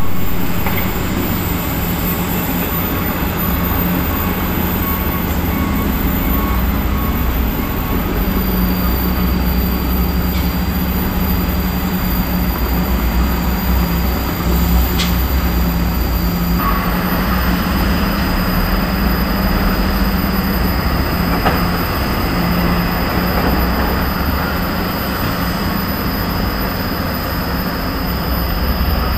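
Diesel engines of Hino dump trucks and excavators running, a steady low rumble with a constant engine hum.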